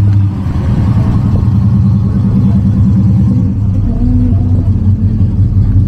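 A car engine running with a low, rapidly pulsing exhaust note.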